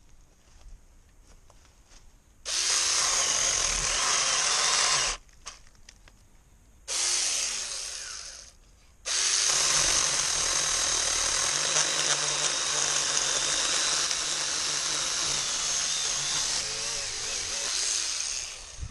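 Hancaner cordless mini chainsaw running in three bursts: two short ones, then a long run of about nine seconds.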